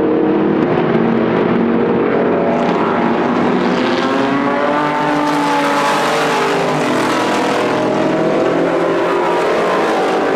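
Sports-car race car engines running hard through a corner, several engine notes overlapping. One car's pitch climbs as it accelerates and passes loudest about six seconds in.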